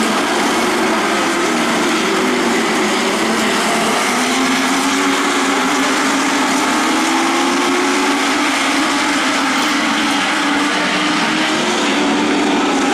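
A pack of Legends race cars running at speed on the track, their Yamaha four-cylinder motorcycle engines blending into a steady drone. The engine notes drift up and down in pitch as cars go by.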